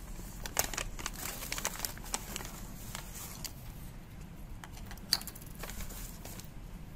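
Paper rustling and crinkling as a small keychain is unwrapped by hand. About five seconds in comes a single sharp tap as the keychain is set down on a wooden tabletop.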